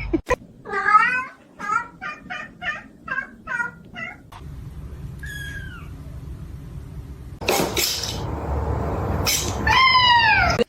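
Cat meowing: a quick run of about seven short meows, then a single higher call. After that comes a stretch of rustling noise and one loud drawn-out meow near the end.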